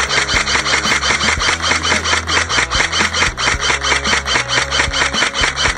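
Airsoft electric rifle firing one long full-auto burst: a rapid, even rattle of shots that stops shortly before the end.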